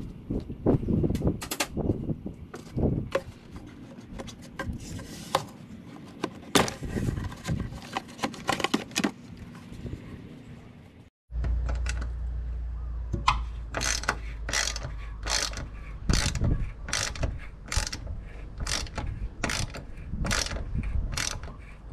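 Quarter-inch socket ratchet clicking as bolts are backed out, irregular at first. After a break about halfway, it clicks in an even rhythm of about two clicks a second over a low steady hum.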